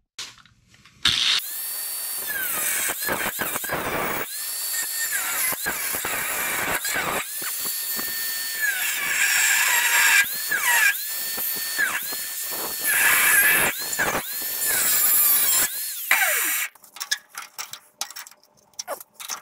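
Rotary cut-off tool slicing through the rusted sheet-steel tail panel of a 1989 Chevy K5 Blazer, cutting out an inspection window. The tool is triggered in about a dozen short bursts, its whine rising as it spins up, holding, and falling away each time, over a harsh metal-cutting rasp. Near the end come a few light clinks.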